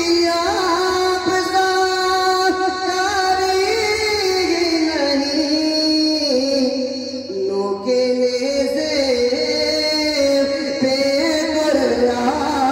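A man singing a naat into a microphone, holding long drawn-out notes that wind and slide gradually downward in pitch.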